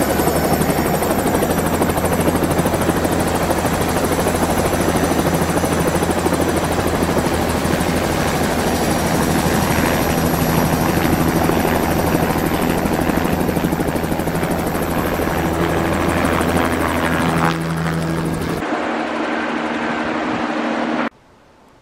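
Helicopter running at close range: a steady, rapid rotor beat with a high steady whine over it. Near the end the sound changes abruptly and then cuts off.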